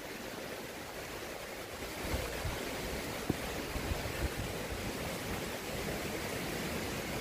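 Fast, swollen river rushing below a footbridge: a steady wash of water noise, with a few faint low thumps partway through.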